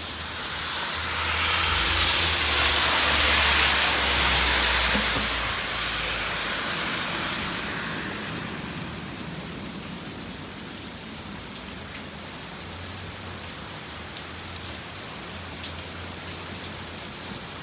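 Heavy rain pouring down in a storm. About a second in, a strong gust of wind swells, buffeting the microphone with a low rumble, then dies back over several seconds to a steady downpour. A weaker gust follows near the end.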